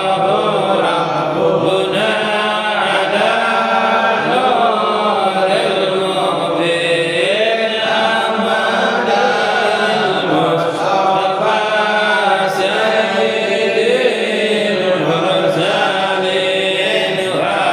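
Voices chanting Arabic sholawat, praise of the Prophet Muhammad, in a slow melody that glides up and down without breaks.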